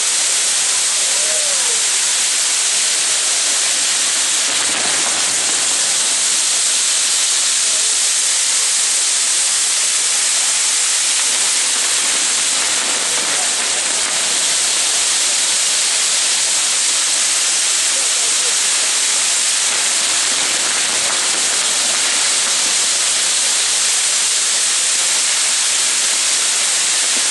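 Ground fireworks burning with a loud, steady hiss and no distinct bangs.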